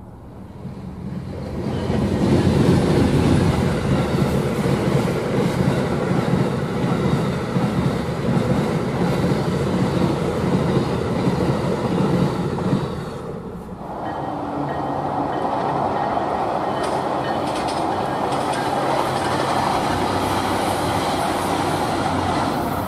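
Amtrak passenger train rolling past at speed: wheels clicking over the rails and cars rumbling, the sound swelling in over the first couple of seconds. After a brief dip about 13 seconds in, steady train running noise with a higher hum carries on.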